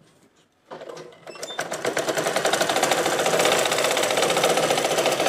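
Domestic sewing machine stitching a seam through cotton fabric: it starts about a second in, picks up speed, then runs steadily fast with a rapid clatter of needle strokes.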